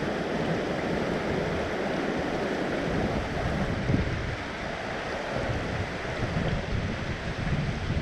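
Mountain stream rushing over rocky riffles in a steady wash, with gusts of wind buffeting the microphone.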